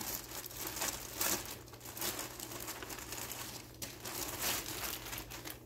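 Packaging crinkling and rustling in irregular bursts as it is handled and pulled open by hand.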